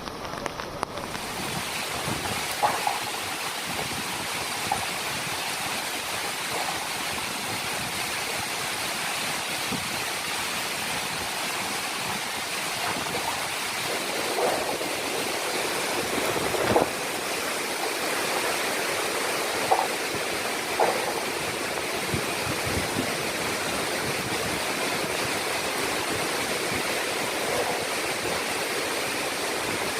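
Steady rushing noise of strong cyclone winds and heavy surf on a beach, filling in about a second in, with a few short louder moments.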